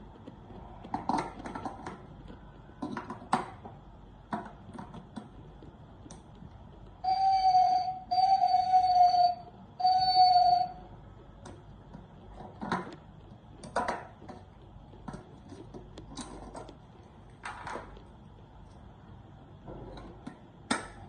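Electronic sound unit of a battery-powered plastic owl scarecrow giving three loud, steady beeps, each about a second long, a little past the middle. Scattered short plastic clicks and knocks come before and after them.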